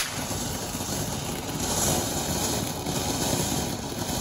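Ground fountain firework spraying sparks with a steady rushing hiss, which swells slightly about two seconds in; a single sharp pop at the very start.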